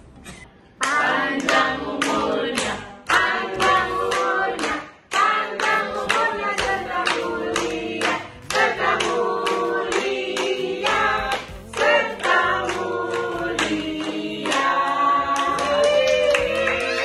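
A group of adults and children singing together in chorus while clapping along in a steady beat; the singing starts just under a second in.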